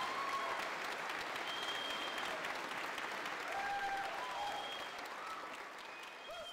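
Audience applauding, the clapping slowly dying down towards the end.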